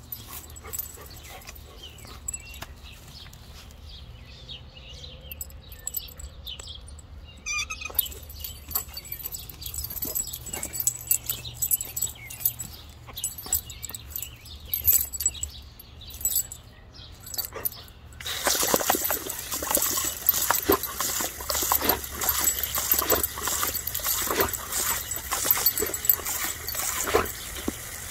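An Irish Setter licking and biting at a garden hose spray nozzle, with irregular clicks and laps. About two-thirds of the way in the nozzle starts spraying with a loud, steady hiss, and the dog keeps snapping and lapping at the spray.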